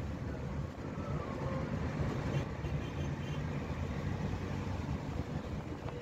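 Steady low road and engine rumble of a car cruising along a highway, heard from inside the cabin.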